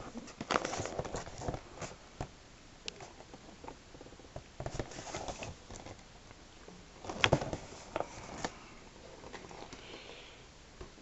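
Handling of a toy's cardboard box with a clear plastic window: rustling and crinkling plastic with scattered taps and clicks, the sharpest click about seven seconds in.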